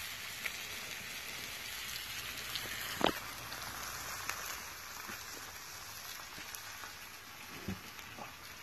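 Bacon sizzling steadily on a propane-heated steel plow-disc griddle, with a short knock about three seconds in and a softer one near the end.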